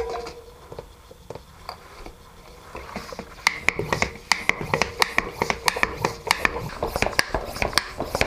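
Bicycle hand pump being worked to inflate and seat a tubeless tyre: a few quiet handling sounds, then from about three seconds in a quick, regular run of rasping pump strokes.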